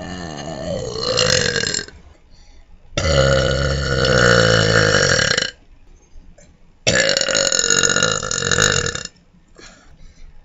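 A person letting out long, loud burps one after another: three drawn-out belches of about two to three seconds each, the first already under way and ending about two seconds in, the others starting about three and seven seconds in, with short pauses between.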